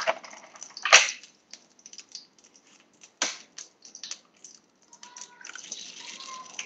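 A hen's egg being cracked by hand over a small frying pan: a few sharp taps and cracks of the shell, with lighter shell ticks between. A faint sizzle starts about five seconds in as the egg goes into the hot oil.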